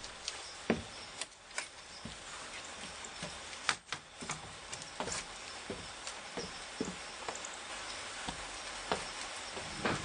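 Scattered, irregular clicks and taps over a steady low hiss, with no even rhythm.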